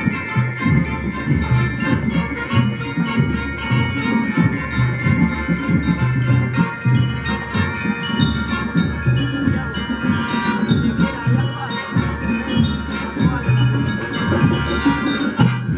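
Marching band playing: brass holding a tune over bright bell-lyre notes, with a steady beat of drums and a repeating low bass-drum pulse.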